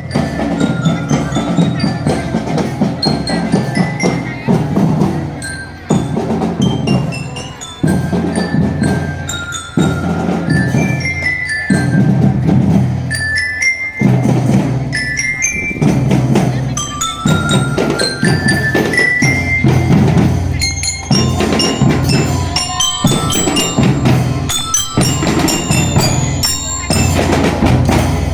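Marching drum band playing: a bright bell-lyre melody in quick stepping runs of notes over steady drums and snare.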